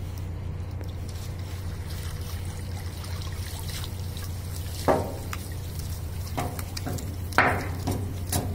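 Seawater trickling and splashing as a hoop landing net holding a bundle of frayed polypropylene rope (an artificial-seaweed shrimp trap) is lifted out of the water, with two louder splashes about five and seven and a half seconds in. A steady low hum runs underneath.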